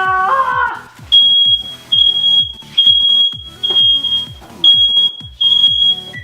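Smoke alarm set off by cooking, sounding a loud high-pitched beep over and over, roughly once a second. A short yell comes at the start.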